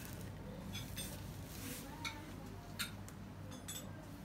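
A serving spoon scooping rice and chicken out of a metal cooking pot, with a few faint clicks and a short scrape of the spoon against the pot.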